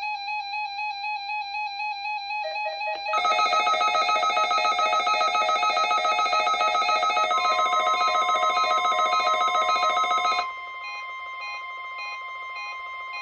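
Weather-alert radio receivers beeping their electronic alarms, with a louder, denser warbling alarm joining about three seconds in and stopping about ten seconds in. About seven seconds in, the steady 1050 Hz NOAA Weather Radio warning alarm tone starts and holds: the weekly test signal that triggers these receivers.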